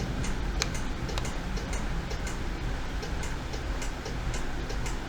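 Irregular clicks of a computer mouse and keyboard, a few a second, over a steady low hum.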